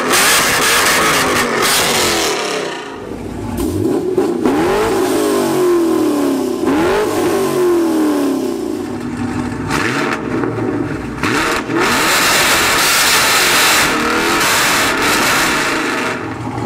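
Chevrolet Camaro engines revving through loud exhausts: repeated quick rev blips, each one rising sharply and dropping back, among stretches of held high revs.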